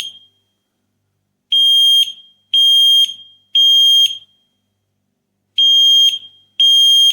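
XINDUM mini smoke detector in full alarm, set off by vaporizer vapour: loud, high-pitched half-second beeps in the three-beep pattern, three beeps a second apart, a pause, then the next group beginning.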